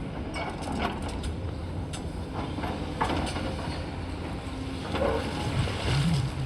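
Diesel excavator running steadily with scattered clanks and knocks as broken concrete rubble is scooped and sorted.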